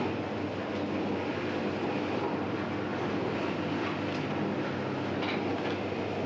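Bakery dough machinery running with a steady mechanical hum and rumble, with a couple of faint clicks about four and five seconds in.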